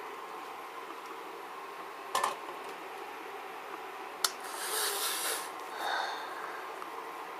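A metal pot of just-boiled water being handled: a sharp knock, a click, then about a second of scraping hiss and a shorter rustle near the end, over a steady faint hum with a thin whine.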